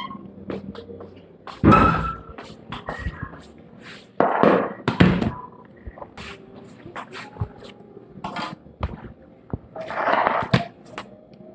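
Knocks, scrapes and handling noise from a metal baking pan of sponge cake being carried and set down on the kitchen countertop, with a few louder rustling bursts about two, four to five and ten seconds in, and scattered clicks.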